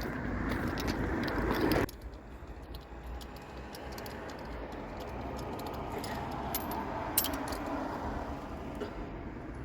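Light metallic clinks and small rattles of parts and tools being handled, over a steady background noise. A louder hissing noise stops abruptly about two seconds in.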